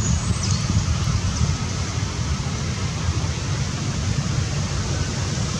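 Steady outdoor noise: wind rumbling on the microphone, with a constant hiss.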